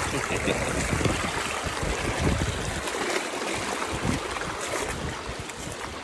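Mountain creek running over rocks: a steady rushing hiss of water, with irregular low bumps on the microphone.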